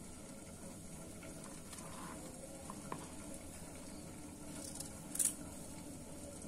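Quiet handling of cauliflower florets on a plastic chopping board as they are cut with a knife and pulled apart by hand, with a few soft clicks and one brief crisp crack about five seconds in.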